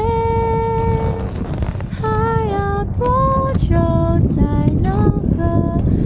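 A woman singing a slow melody without clear words. It opens with a long held note of about a second, then moves into shorter notes that slide up and down, over a steady low rumble.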